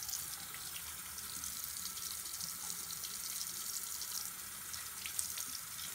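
Bathroom sink faucet running a steady stream of water into the basin.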